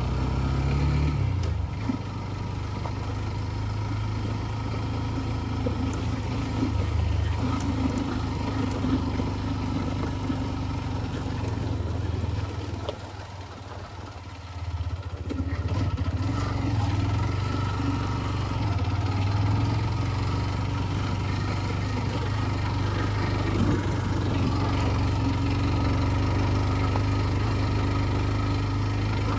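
TVS Ntorq 125 scooter's single-cylinder engine running steadily under way. About halfway through it drops quieter for a few seconds, then picks up again.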